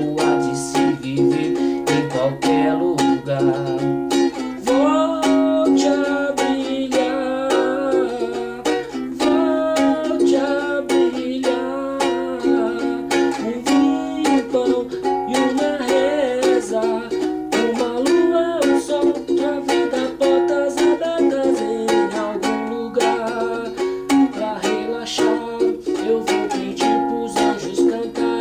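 Ukulele strummed in a steady rhythm through the chords Gb, E-flat minor and B-flat minor, with a man singing along in Portuguese.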